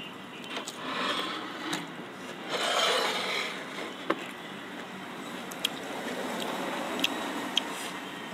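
People chewing food close to the microphone, with two louder stretches of chewing about a second in and around three seconds in, then a few sharp small clicks.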